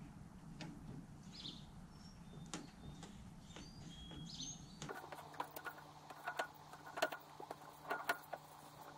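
Faint bird chirps over a soft outdoor background. About five seconds in the sound changes to light metallic clicks and ticks from a hand tube-flaring tool being worked on copper tubing, over a low steady hum.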